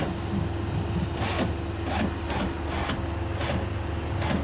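Bobcat S185 skid-steer's diesel engine running steadily while its homemade bale shredder works, with an irregular clatter about twice a second from the shredder as it rolls out a bale.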